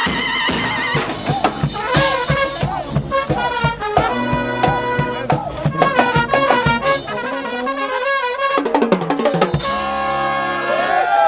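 Street brass band playing: horns over a steady drum beat. Near the end the drums drop out and the horns hold long notes.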